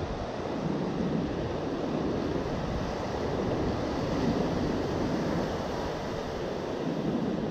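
Ocean surf breaking and washing up a sandy beach in a steady rush that swells and eases, with wind buffeting the microphone.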